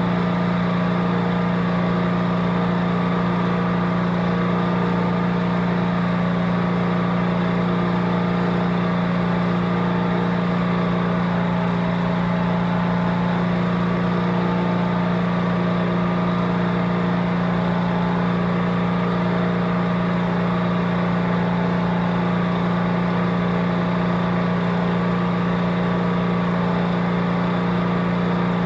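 A motor running at a constant speed, giving a loud, unchanging hum with one strong low pitch.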